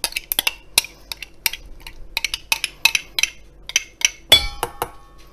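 A metal utensil scraping and tapping inside a mayonnaise jar to get the last of the mayonnaise out: a quick, irregular run of clicks and clinks, with one louder ringing clink about four seconds in.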